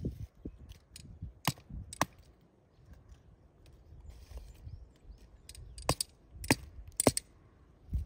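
Lumps of charcoal clinking against each other and against metal tongs as they are picked up and stacked: two sharp clinks about a second and a half in, then three more close together near the end.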